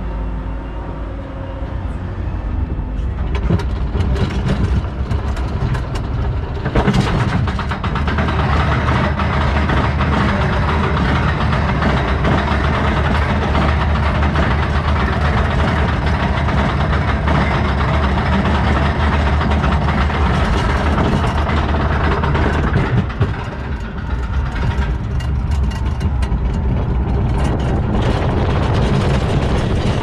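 Roller coaster train rolling out and climbing the lift hill: a steady mechanical rumble with fast, dense clattering from the lift, louder from about seven seconds in once the climb is under way.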